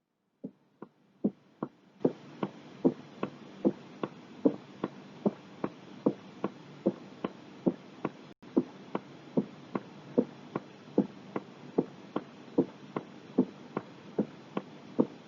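Heart sounds from an auscultation recording: short, sharp beats, evenly spaced at about two and a half a second, over a steady hiss. There is a brief dropout about eight seconds in.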